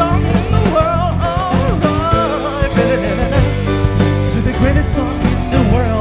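Live rock band playing: electric guitar and bass over drums with steady cymbal strokes, and a lead melody that bends in pitch above them.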